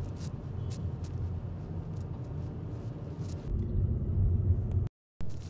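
Car interior road noise while driving slowly on a city street: a steady low rumble of engine and tyres. It gets louder about three and a half seconds in, then cuts out to silence for a moment near the end before resuming.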